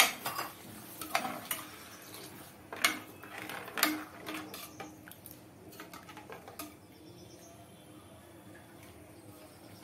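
Metal ladle stirring thick cooked lentils in an open metal pressure cooker, knocking and scraping against the pot's sides and rim. Several sharp clanks come in the first four seconds, then lighter taps and scrapes that fade out about seven seconds in.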